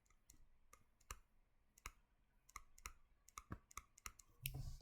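Faint, irregular small clicks, about a dozen spread unevenly, like the handling of a computer mouse or pen while drawing. Near the end comes a brief soft rush of sound.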